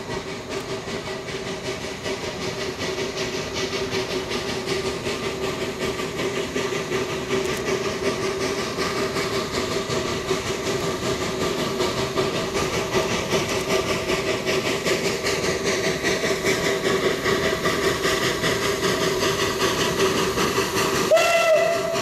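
Narrow-gauge forest-railway steam locomotive working toward the listener, its rapid exhaust chuffs slowly growing louder, with one short blast of its steam whistle near the end.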